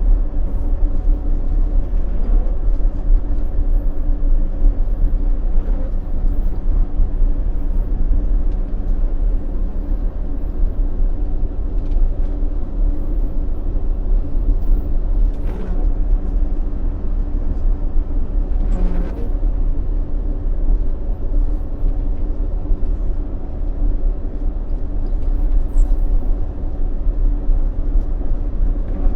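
Motor grader's diesel engine running steadily with a deep rumble.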